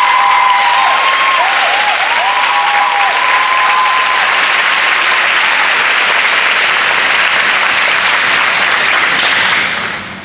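Large audience of schoolchildren applauding, with a few high cheering whoops in the first few seconds. The clapping dies away near the end.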